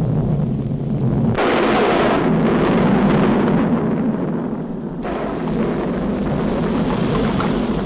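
Cartoon sound effect of a volcano erupting: a sudden deep rumble that swells about a second and a half in into a loud, continuous rush of explosive noise.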